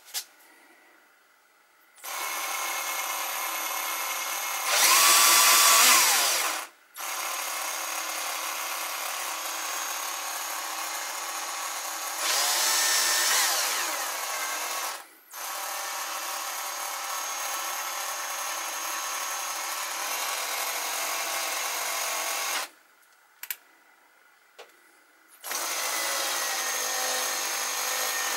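Parkside cordless drill running steadily as a power feed, turning a milling machine's table feed screw through a slip-on driving dog. It stops and starts a few times and has two brief spells of louder, faster running. After a pause of a few seconds near the end it starts again.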